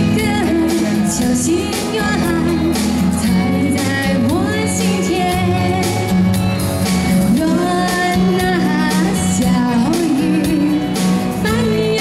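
A woman singing live, with instrumental backing music.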